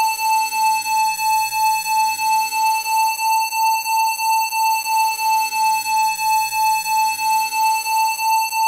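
Steady 880 Hz electronic tone with overtones above it, its loudness pulsing about three times a second.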